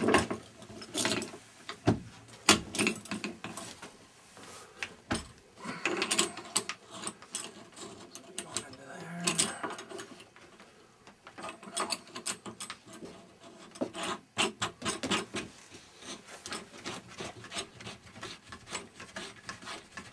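Hands working the fittings of a wall-mounted geothermal pump unit: irregular clicks, knocks and rubbing, with a few sharper knocks.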